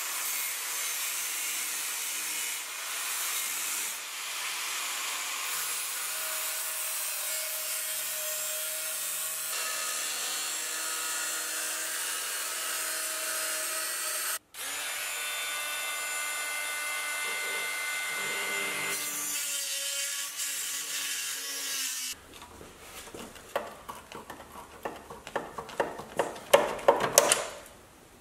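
Angle grinder with a cut-off disc cutting through the sheet-steel door sill, a steady high whine whose tones shift as the disc bites, broken off suddenly about halfway and at once running again. About three-quarters of the way in the grinding stops and gives way to irregular scraping and clicking strokes on metal.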